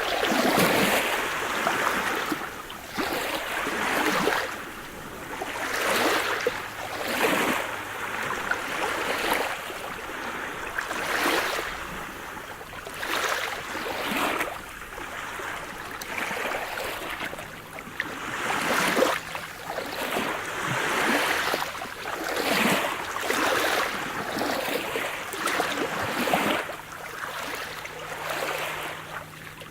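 Sea surf: small waves breaking and washing ashore one after another, a rush of water swelling and fading every second or two.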